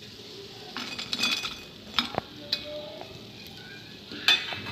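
A steel slotted spoon scraping and clinking on a ceramic plate as freshly fried chicken pieces are slid off it. A few sharp clicks come around the middle, and the loudest clink comes near the end. Hot oil sizzles faintly underneath.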